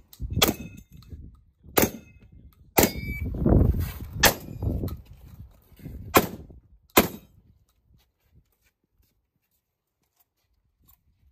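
Six shotgun shots at uneven intervals, one every second or so, each with a short echo. The last one comes about seven seconds in, and it is near silent after it.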